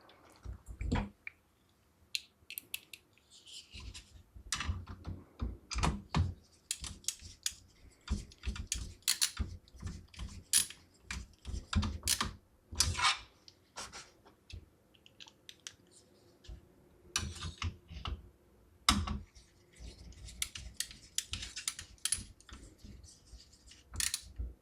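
Irregular plastic clicks, taps and rustling as PC power-supply cables and their connectors are handled and routed inside a small computer case.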